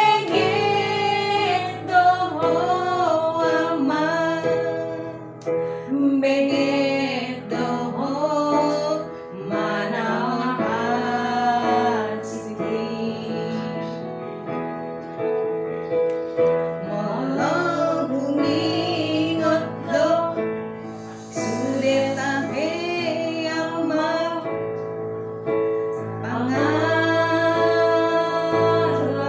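A woman singing a song in phrases over digital piano accompaniment of sustained chords.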